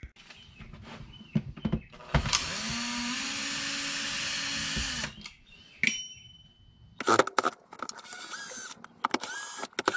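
Cordless power driver backing screws out of a plastic jump-starter case. The motor runs with a steady whine for about three seconds, then comes a sharp knock and a string of short stop-start bursts near the end.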